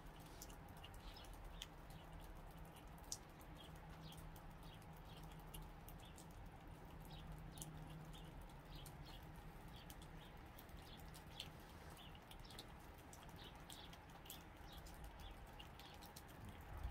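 Faint outdoor ambience with frequent short, high chirps of small birds, mixed with sharp little crunching clicks from a gray squirrel chewing a nut close by.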